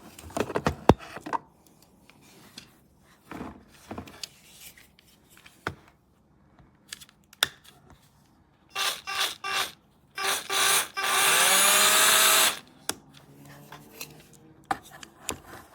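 Cordless 20V drill motor run from the trigger: three quick short bursts, then another, then held for about a second and a half, rising in pitch as it spins up. Clicks from handling the drill come before it.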